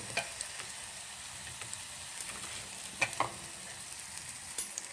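Batter-coated green chillies deep-frying in hot oil with a steady sizzle, and a few sharp clicks about three seconds in and near the end.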